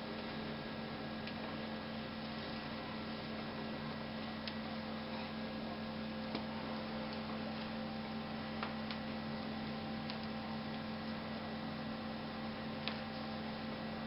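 Steady electrical hum over an even hiss, with a few faint, separate clicks spread through it.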